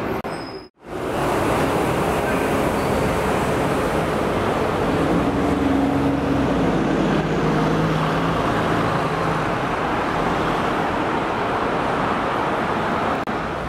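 Steady city street traffic noise, with a low engine hum standing out in the middle and dropping in pitch. The sound cuts out briefly under a second in.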